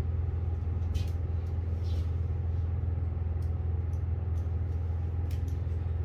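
Steady low hum of running machinery, even and unchanging, with a few faint light clicks scattered through it.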